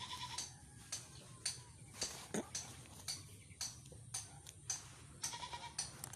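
Close-up rubbing and clicking of a phone being handled against clothing, with a short animal call at the start and another about five seconds in.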